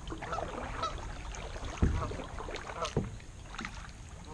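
Kayak paddling on choppy water: paddle blades dipping and splashing, water slapping the hull, over a low wind rumble. There are two louder low thuds, about two and three seconds in.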